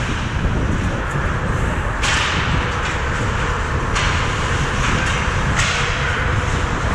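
Ice hockey game noise on the rink: skates scraping and swishing on the ice over a steady low rumble, with the hissy scraping growing louder and fading back several times.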